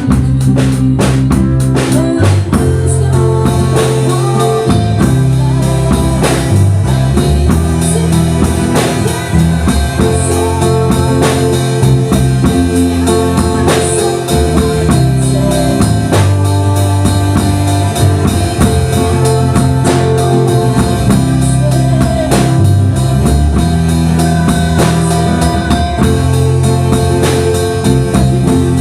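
Band music: a drum kit keeping a steady beat under bass and guitar, with the bass notes changing every second or so.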